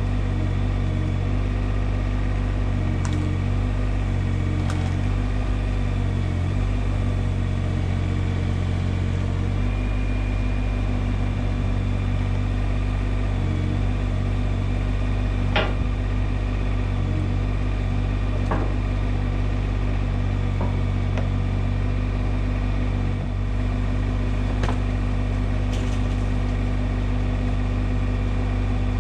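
IHI 20NX mini excavator's diesel engine running steadily, its pitch wavering slightly in the first ten seconds as it works under hydraulic load. A few short knocks come through, the clearest about halfway through.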